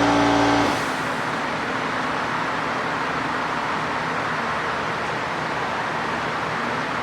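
An electric motor on a horizontal bandsaw hums steadily, then cuts off abruptly under a second in, leaving a steady, even hiss of background machinery.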